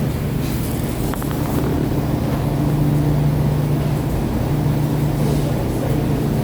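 A steady low mechanical hum with a constant pitch, and a few faint clicks a little over a second in.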